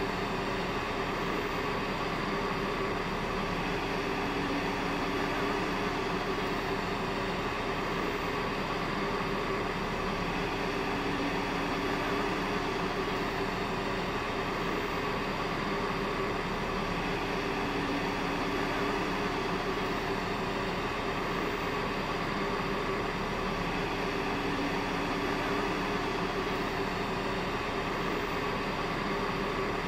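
A steady mechanical drone with a constant hum, unchanging throughout.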